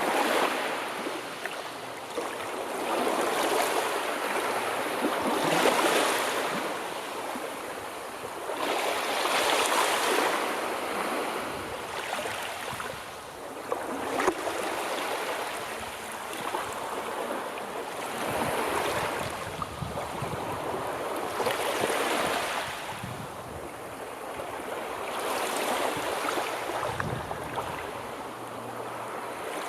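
Sea waves washing onto the shore, a rushing swell rising and falling about every three to four seconds.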